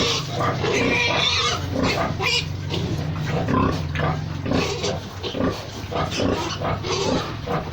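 Pigs grunting in many short, irregular calls, with a longer high squeal in the first second or so. A low steady hum runs underneath.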